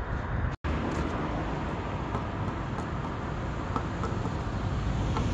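Steady road traffic noise, broken by a momentary dropout just over half a second in.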